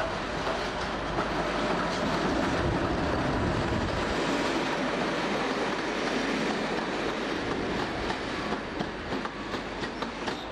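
Class 86 AC electric locomotive and its coaches running past on the track, a steady rumble of wheels and motors. Near the end it gives way to a rhythmic clickety-clack of wheels over the rail joints as the coaches go by.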